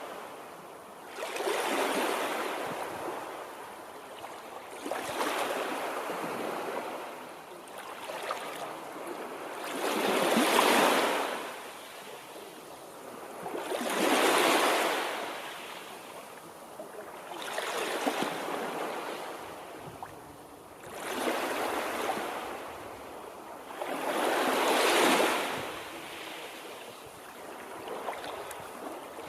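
Small waves breaking and washing in, one surge every three to four seconds, each swelling up and fading away.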